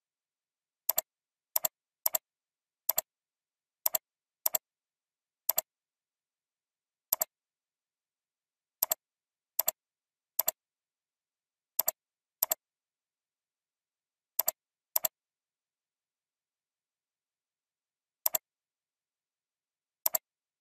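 Computer mouse clicks: about seventeen sharp double ticks at irregular intervals, with dead silence between them.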